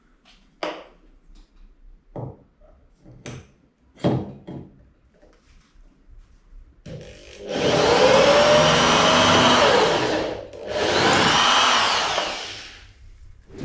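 Electric drill running twice for about three seconds each, its motor speeding up and slowing down, boring the hole for the light bar's switch in the ATV's dash. Before that come a few light knocks and clicks as the drill and parts are handled, and a short thump at the very end.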